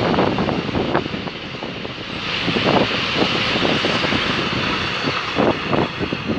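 Container freight wagons rolling past on the track: a steady rumble and hiss with irregular clacks of steel wheels over rail joints.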